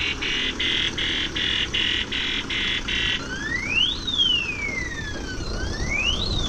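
A truck's electronic reversing alarm sounding as the car-carrier truck backs up, with the truck's engine running low underneath. It beeps rapidly in a high pulsing pattern, about two and a half times a second, then about three seconds in switches to a siren wail that rises and falls twice.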